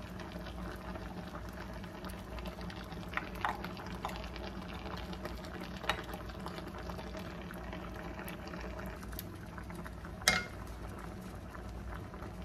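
Water boiling in a nonstick frying pan under pieces of skate, with a steady low hum underneath. A few spoon clinks and scrapes come as seasoning paste is spread over the fish, the loudest a sharp clink about ten seconds in.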